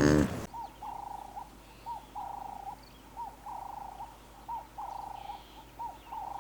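An animal calling over and over: each call a short rising-and-falling note followed by a held steady tone, repeated about every second and a half, with faint higher chirps around it. A louder pitched sound cuts off about half a second in.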